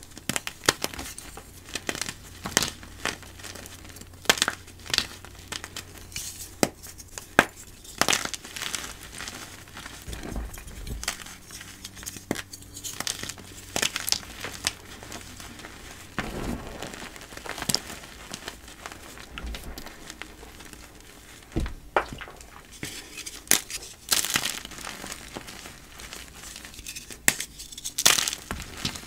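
Blocks of dyed gym chalk crunching and crumbling, a powdery, crunchy texture heard as a run of sharp, irregular crunches, bunched into clusters with short pauses between.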